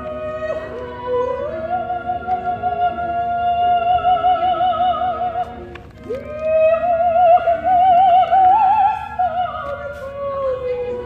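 Operatic singing: one voice holds long notes with wide vibrato, dips briefly, then slides up into a new sustained phrase about six seconds in, over other steady held tones.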